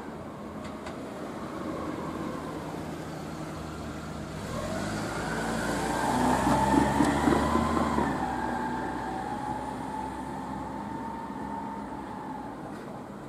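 A passing vehicle: a whining hum that grows louder, peaks about seven seconds in, then drops a little in pitch and fades.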